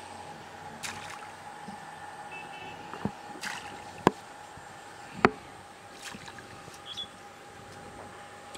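Bait tossed by hand into the water, giving a handful of sharp short plops and taps, the loudest about four and five seconds in. A faint steady hum runs underneath, and short bird chirps come twice.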